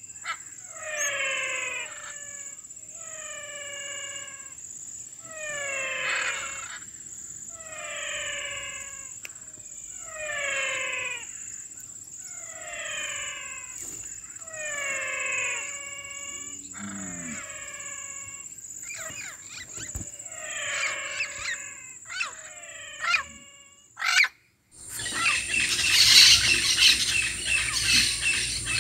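A wild animal calls over and over, about a dozen times, one short falling cry every couple of seconds, over a steady high insect whine. Near the end the sound cuts out briefly and gives way to a dense chorus of chirping birds and insects.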